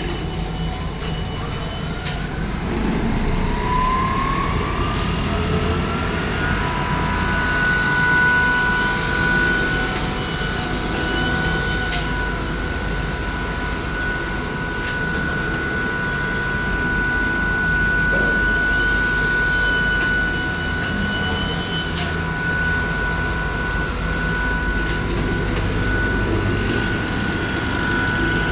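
Automatic tablecloth sewing machine running. A motor whine rises in pitch over a few seconds and then holds one steady pitch over a constant low machine hum, with a few faint clicks.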